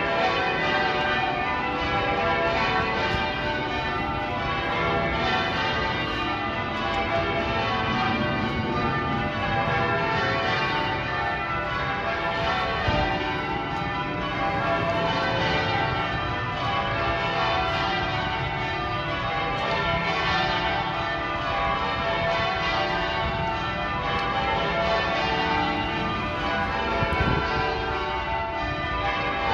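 Manchester Cathedral's ring of church bells being rung in changes: a continuous run of overlapping bell strokes at an even level, each bell ringing on into the next.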